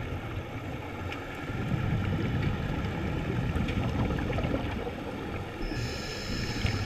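Scuba breathing through a regulator, heard underwater: a low bubbling rumble of exhaled air through the middle, then the hissing draw of an inhale starting near the end.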